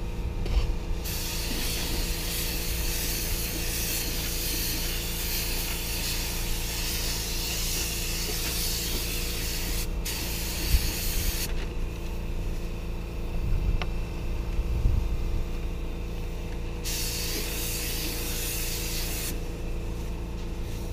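Gravity-feed paint spray gun spraying in hissing bursts: a long pass from about a second in, a short one soon after, and another near the end, over a steady low hum.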